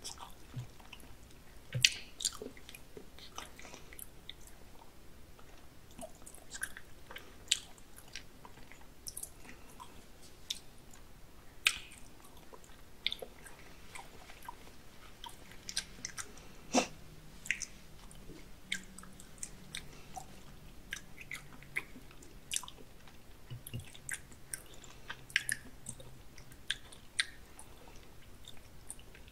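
A person chewing raw salmon sashimi close to the microphone, with irregular sharp mouth clicks scattered throughout.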